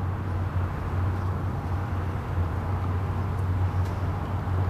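Airbus A319 airliner taxiing with its jet engines at idle, heard from a distance as a steady low rumble.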